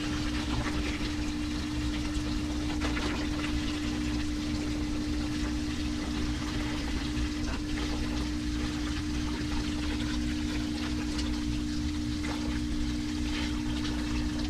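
Tap water poured from a 5-gallon bucket, splashing and gurgling into a part-filled aquarium, over a steady low hum.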